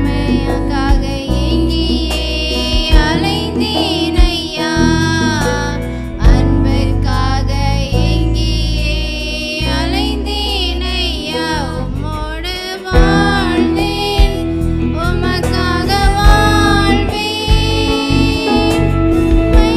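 Tamil Christian worship song sung by female vocals, backed by a live band of keyboard, electric guitar and bass guitar.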